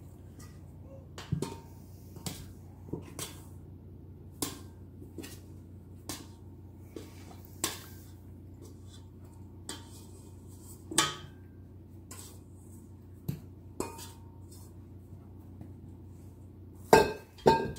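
Scattered knocks and clinks of a stainless steel mixing bowl as it is held upturned to turn risen bread dough out onto a mat, with a louder cluster of knocks near the end. A low steady hum runs underneath.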